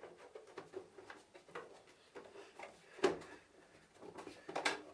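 Plastic clicks and knocks of a vacuum cleaner's top cover being handled and fitted onto the body over the speed regulator. There is a sharper knock about three seconds in and a cluster of clicks near the end.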